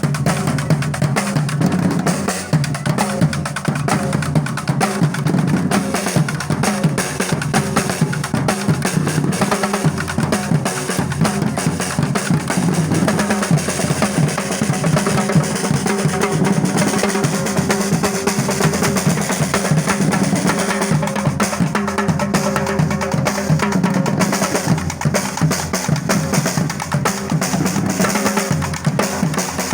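Music carried by drums and percussion, with a dense, steady beat.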